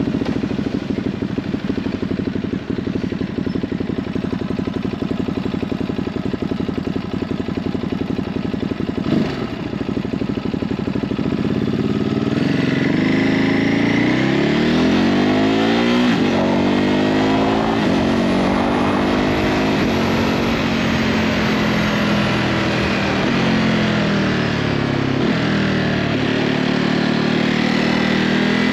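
Ducati Hypermotard 950's 937 cc Testastretta L-twin engine with its stock exhaust. It runs at low revs with an uneven, pulsing beat for about the first twelve seconds. Then it accelerates, its pitch climbing and dropping back several times at the gear changes.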